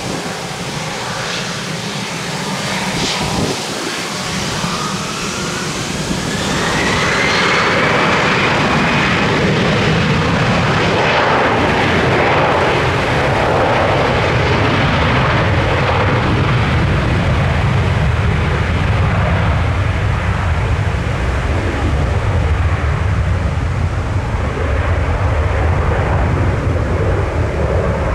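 Airliner's engines, loud: a whine rises in pitch over the first several seconds as the noise builds, then a steady heavy roar holds for the rest.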